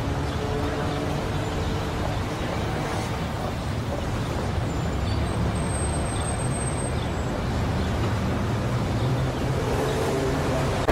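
Steady background noise with a low rumble, even throughout and without music or voices.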